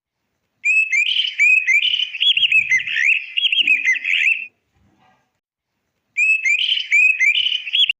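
Small birds chirping and twittering in quick, rapid runs of calls, in two stretches with a short pause between; the second stretch cuts off abruptly.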